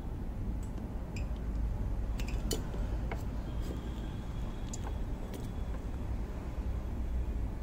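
Scattered small clicks and taps of a test probe and fingers handling a phone circuit board, over a steady low hum.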